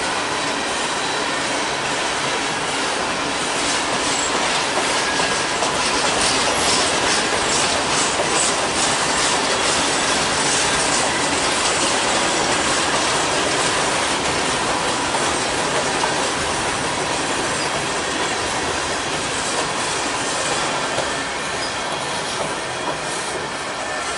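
Freight train boxcars rolling past: a steady wheel-on-rail rumble with clickety-clack from the wheels over rail joints, heaviest between about six and nine seconds in, and a faint thin wheel squeal.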